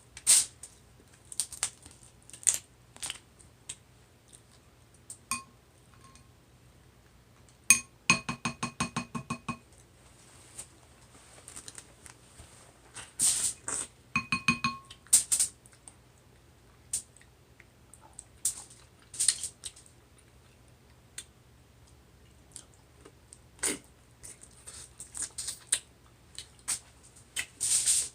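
Close-up eating sounds of a seafood boil: mussel shells clicking and clinking, with chewing and lip smacks in scattered bursts. A brief buzzing, pitched tone comes about eight seconds in and again near fourteen seconds.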